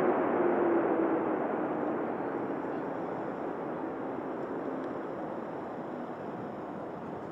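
Boeing 777-9's GE9X turbofan engines rushing as the jet rolls out after landing, with a low hum sliding down in pitch over the first couple of seconds while the noise steadily fades.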